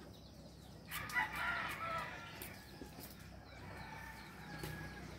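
A rooster crowing once, about a second in: a single drawn-out call lasting about a second and a half.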